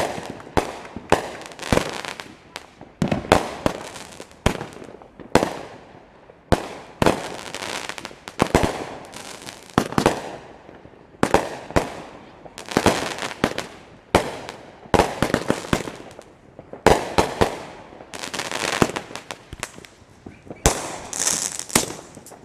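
Consumer firework cake firing a rapid series of shots, about two sharp bangs a second, each trailing off in crackle.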